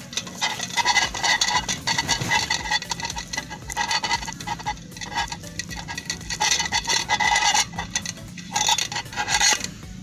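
Plastic raffia string rustling and crinkling close up as hands knot it tightly onto a wire, a dense irregular rubbing and crackling that goes on throughout.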